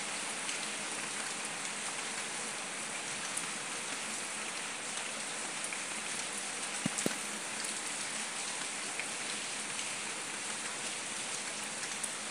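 Steady rain falling on wet paving, an even hiss with scattered sharp drop taps, two of them louder about seven seconds in.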